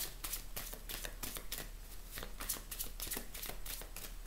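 A deck of oracle cards being shuffled by hand: a quick, even run of soft card slaps, several a second.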